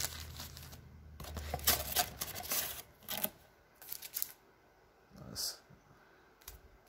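Foil trading card packs crinkling and tapping as they are handled and set down in a stack. The short crackles come close together for about four seconds, then only twice more.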